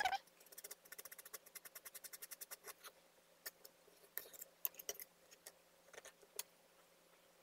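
Small metal palette knife tapping and scraping against a board as it works soft decorative plaster: a quick run of light ticks, about ten a second, for the first couple of seconds, then scattered single clicks and scrapes.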